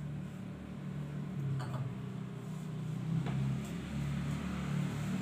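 Light clicks and knocks as a tranquilizer dart rifle and small parts are handled and set down on a tiled floor, a few separate taps over a steady low hum.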